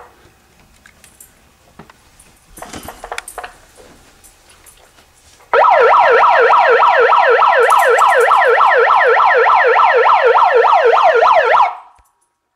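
Electronic siren alarm: a loud, rapid warble sweeping up and down about four times a second. It starts suddenly about five and a half seconds in and cuts off about six seconds later.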